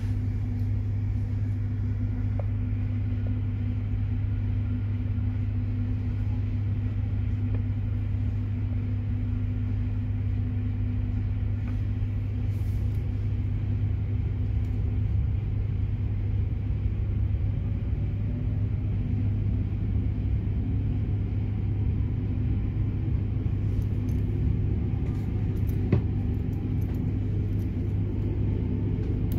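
Inside a Bombardier Régio2N electric multiple unit: a steady low hum, and from about halfway a faint whine that slowly rises in pitch as the train pulls away and gathers speed. A single click sounds near the end.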